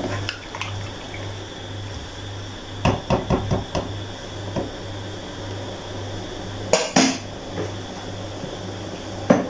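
Wooden spatula stirring rice and broth in a metal cooking pot, knocking and scraping against the pot's sides: a quick run of knocks about three seconds in, sharper ones near seven seconds and one just before the end, over a steady low hum.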